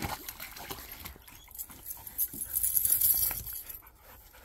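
Dogs moving about on bare dirt, with light scuffs and clicks. A little over two seconds in comes a louder rush of water splashing for about a second as a husky steps into a plastic kiddie pool.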